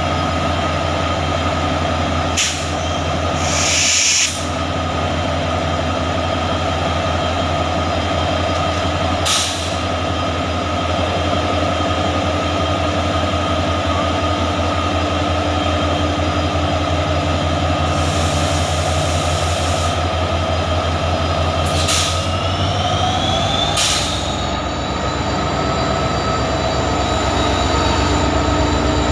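WDP4-class diesel locomotive's two-stroke V16 engine running with a steady low throb, with several short hisses of released air. About 22 seconds in, the engine note and a high whine rise and stay up as the locomotive throttles up to pull the train away.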